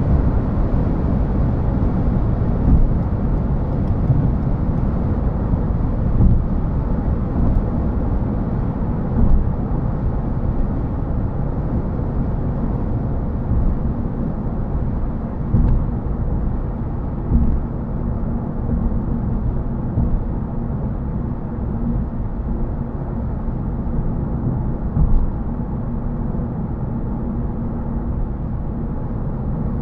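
Road and tyre noise inside the cabin of a Toyota Yaris GR Sport hybrid cruising at about 70 mph on a dual carriageway: a steady low rumble with a few brief louder thumps.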